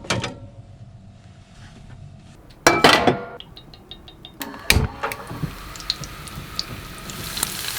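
Kitchen handling knocks, a couple of them loud, then hot oil beginning to sizzle and crackle in a pan, growing louder toward the end as the squid starts frying.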